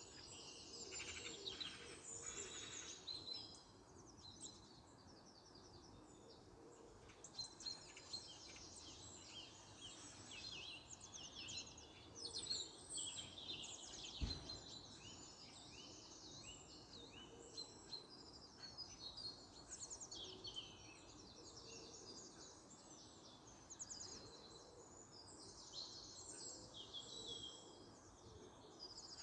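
Several songbirds singing and chirping, overlapping trills and short calls throughout, over a faint steady background hum. A single soft low knock comes about halfway through.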